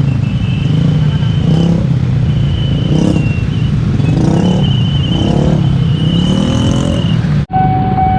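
Vehicle engines at a busy railway level crossing: a steady low drone with engines revving up and down past, about one a second. Near the end it cuts suddenly to a steady high-pitched warning tone.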